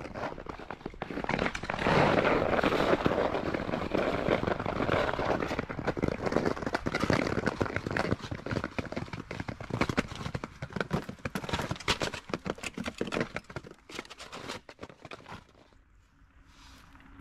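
Ice crackling and crunching in a dense, irregular run of sharp clicks, loudest early on, thinning out and dying away near the end.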